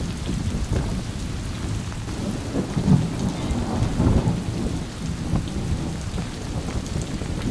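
Storm wind buffeting the microphone as an irregular low rumble that swells about three and four seconds in, over a steady hiss of rain.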